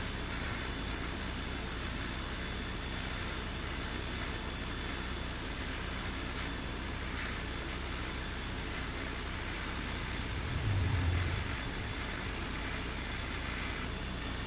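Creality Falcon 2 22 W diode laser engraver cutting plywood: a steady hiss of its air assist blowing at the cut, with the machine's running hum underneath. A brief low hum swells up about three-quarters of the way through.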